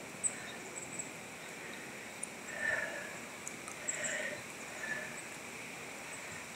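Steady hiss of flowing river water, with two short, faint calls about two and a half and four seconds in, and a third weaker one near the end.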